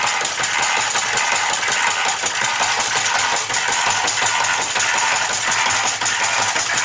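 1860s–70s mechanical food chopper running, its blade chopping down onto the board as the bowl turns round, a fast, even, steady mechanical clatter.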